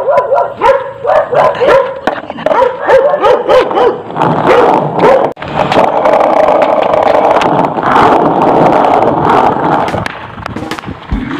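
Dogs barking and yelping repeatedly, the barks overlapping and coming thick and fast.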